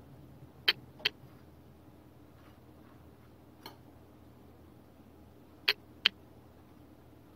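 Sharp, short clicks in two pairs, one about a second in and one near the end, with a faint one between: toasted bagel halves and a utensil knocking against a plate as they come out of a toaster oven.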